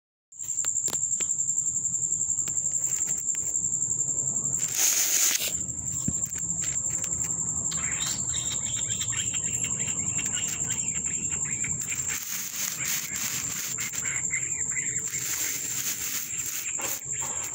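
A cricket's steady, high-pitched trill, unbroken, over a low hum, with two brief bursts of rustling noise.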